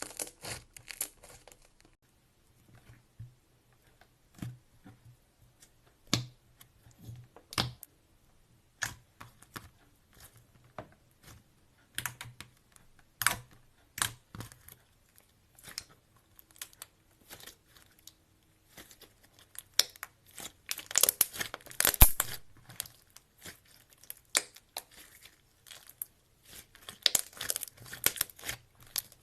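Slime being mixed and stretched by hand, making sticky clicks and crackles. They are sparse at first and come thick and loud from about two-thirds of the way through.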